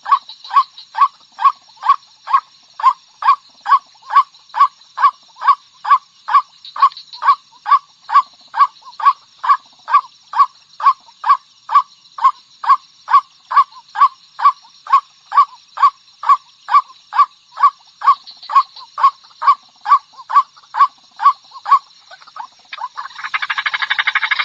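White-breasted waterhen calling: a long, even series of single notes, about two a second, then, about 23 seconds in, a louder, faster, harsher run of calls.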